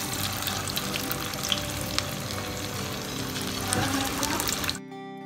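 Marinated chicken pieces deep-frying in hot oil in a steel kadai, a dense sizzle full of sharp crackles and pops as a spoon turns them. The frying sound cuts off suddenly near the end.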